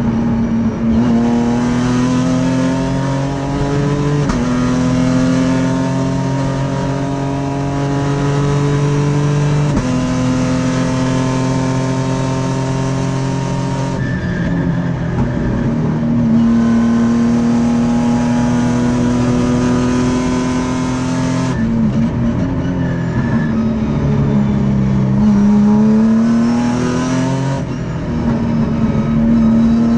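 Sprint Race car's V6 racing engine heard from inside the cockpit at full race pace. It climbs in pitch under hard acceleration, with quick paddle-shift upshifts about 4 and 10 seconds in. It drops away about 14 and 21 seconds in, lifting and downshifting for corners, then revs up again out of them.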